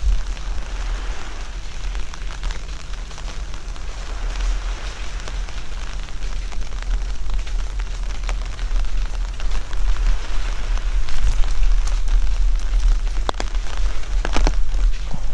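Steady rain falling, with a low rumble underneath and scattered sharp drop clicks, most of them near the end.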